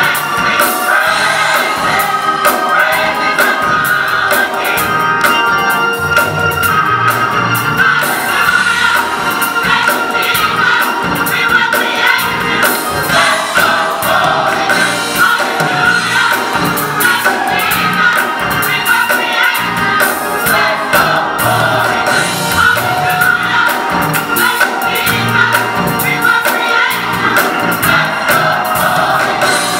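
Gospel choir singing together in full harmony over a steady beat.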